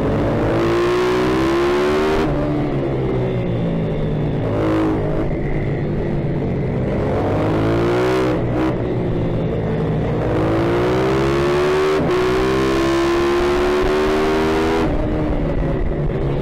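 Single-cylinder four-stroke pitbike engine racing hard, heard from the rider's helmet. The revs climb in long rising sweeps and drop sharply several times at gear changes and when the throttle is closed for corners, with other pitbikes running close by.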